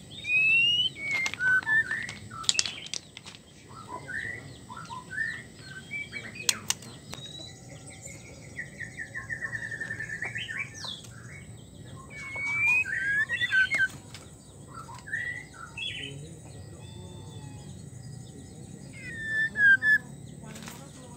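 White-rumped shama singing: a string of varied whistled phrases with sliding notes, a rapid trill of repeated notes near the middle, and a few sharp clicks.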